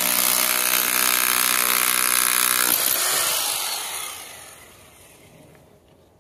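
Glority electric hammer drill with a chisel bit hammering into a concrete fence post base, its motor running steadily. About three seconds in it is switched off, and the sound dies away over the next two seconds.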